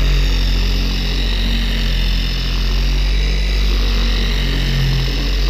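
Porter-Cable 7424 dual-action polisher running steadily, its foam pad working wax over a truck's painted hood.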